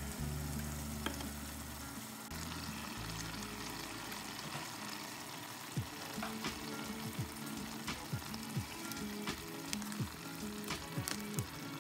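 Saltfish stew simmering and sizzling in a stainless steel pan, a steady hiss with small pops and clicks, under background music with a deep beat that comes in about halfway.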